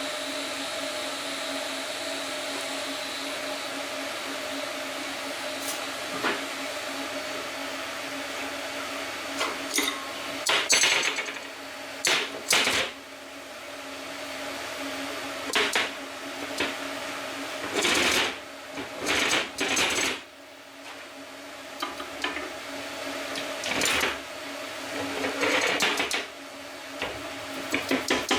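A steady machine hum with a thin high whine. About ten seconds in it gives way to scattered metal knocks and clanks, some of them sharp.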